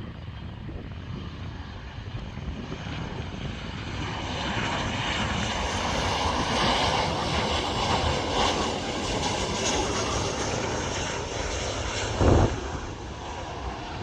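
Ryanair Boeing 737 jet airliner arriving on approach: the jet engine noise builds, is at its loudest for a few seconds, then eases off. A short, loud thump comes near the end.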